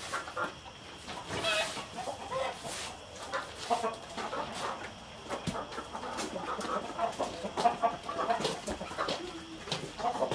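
A flock of hens clucking, many short calls overlapping, with scattered sharp clicks among them.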